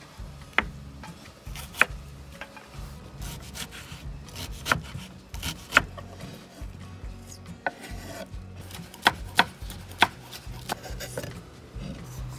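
Kitchen knife chopping red onion on a wooden cutting board: sharp, irregular knocks of the blade against the board, with rubbing and scraping in between.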